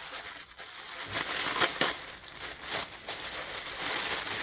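Thin plastic bag crinkling and crackling as hands pull it open, with a run of sharper crackles about a second in.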